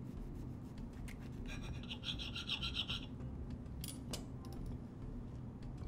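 A knife sawing through a soft slider bun and scraping on a plate, a rasping that lasts about a second and a half, followed a second later by a couple of light clicks.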